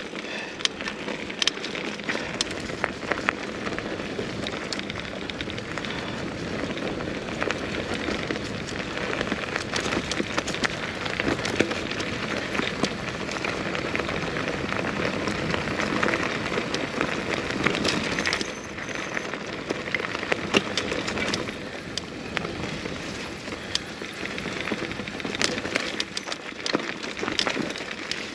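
Mountain bike riding along a dirt trail: a steady rush of tyres rolling over dirt and gravel, with frequent sharp clicks and rattles from the bike.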